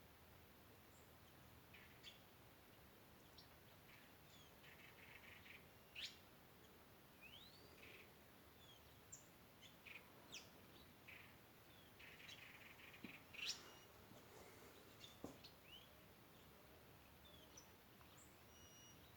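Small wild birds calling in scattered short chirps and squeaks, with a few rising whistled notes and two brief buzzy trills.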